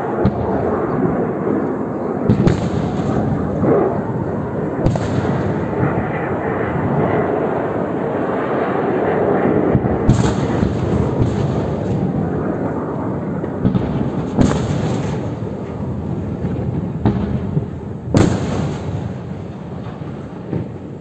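Several sharp booms of missiles exploding in the sky, with Iron Dome interceptors hitting incoming rockets, spaced a few seconds apart over a continuous rumbling roar. The roar tails off near the end.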